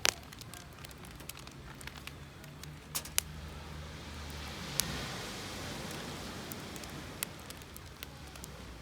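Wood campfire crackling, with a steady hiss and sharp pops: the loudest just as it begins, others at about three, five and seven seconds.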